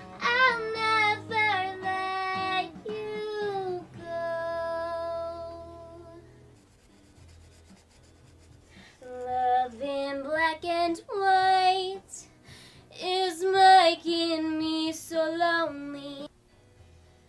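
A woman singing a melody in short phrases, with a long held note, a pause of a couple of seconds, then more sung phrases, over a faint low hum.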